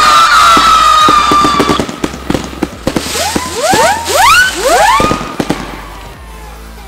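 Daylight fireworks battery firing: a long whistling tone over rapid sharp cracks, then several short rising whistles about three to five seconds in, dying away near the end.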